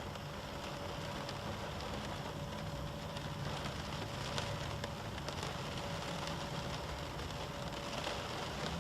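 Steady light rain on a car, with scattered faint drop ticks and a low steady hum underneath.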